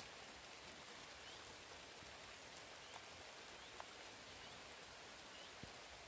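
Faint outdoor ambience: a steady soft hiss, with faint short high chirps repeating about once a second and a few soft ticks.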